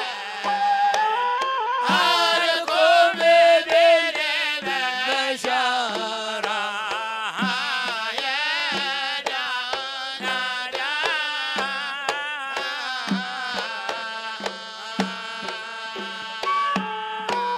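Hadhrami zarbadi song: a sung melody over hand drums keeping a steady beat.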